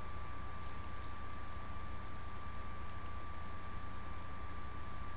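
Room tone in a pause: a steady low electrical hum and a faint steady high whine, with a few faint short clicks in two close pairs, one about a second in and one about three seconds in.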